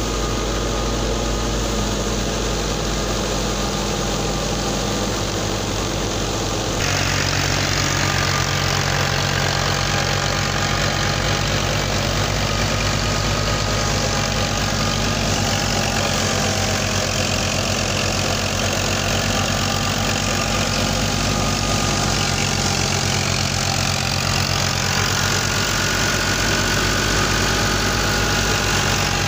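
Tractor engine running steadily, driving a wheat thresher. About seven seconds in, the sound changes abruptly and grows a little louder.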